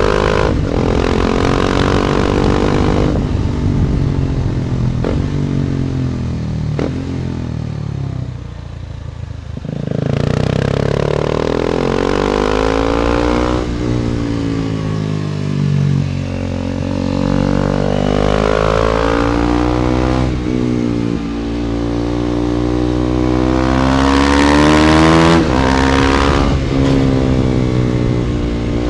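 KTM Duke 250's single-cylinder engine through an Akrapovic exhaust, ridden on the road: the engine note rises under acceleration and drops back at each gear change or lift of the throttle, over and over. It eases off for a couple of seconds about a third of the way in, then climbs again and is loudest near the end. Heavy wind noise on the phone's microphone runs underneath.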